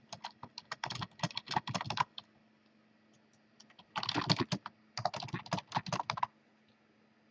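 Typing on a computer keyboard: quick runs of keystrokes, pausing for about two seconds in the middle.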